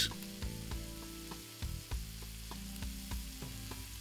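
Bacon-wrapped chicken breasts frying in oil and butter in a pan: a steady sizzling hiss with frequent small crackling pops.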